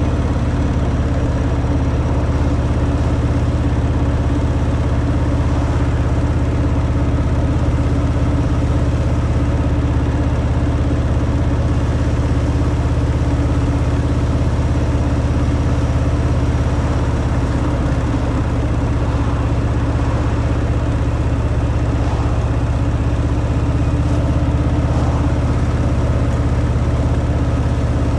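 Harley-Davidson Fat Boy's air-cooled V-twin engine running steadily through its stock exhaust, an even low rumble that holds its pitch throughout.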